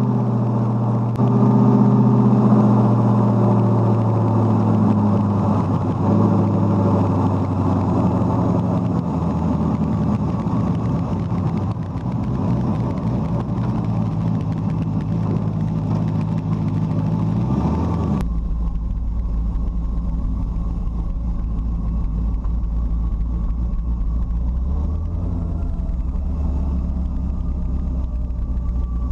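Car engine running under way, a steady drone with some rising and falling in pitch. About 18 s in the sound changes suddenly to a duller, lower drone.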